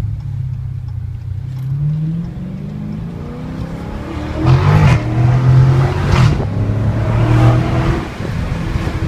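Stock V8 muscle car under hard acceleration, the exhaust note climbing in pitch through the gears. It gets louder about halfway through with a few short surges, then eases off near the end.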